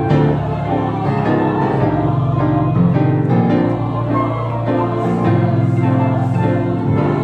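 Grand piano and church organ playing a slow hymn accompaniment together, with held low bass notes under the chords.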